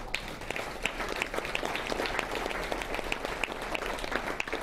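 A room full of people applauding, many hands clapping together steadily.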